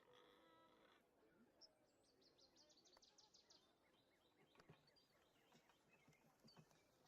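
Very faint rural ambience with birds chirping, including a quick high trill about two seconds in, and a brief animal call at the start.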